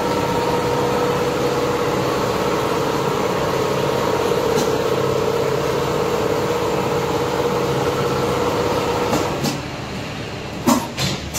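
Richpeace CNC pattern sewing machine running steadily as it stitches leather upholstery: an even machine hum with a held mid-pitched tone. The running sound drops away about nine seconds in, and two short, sharp, loud sounds follow near the end.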